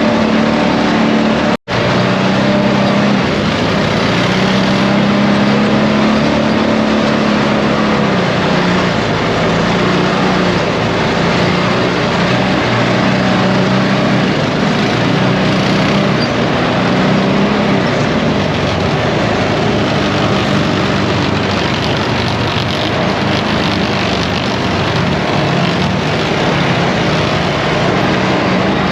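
ATV engine running steadily while riding on a trail, its hum slightly rising and falling with the throttle, over a constant layer of rushing noise. The sound cuts out for an instant near the start.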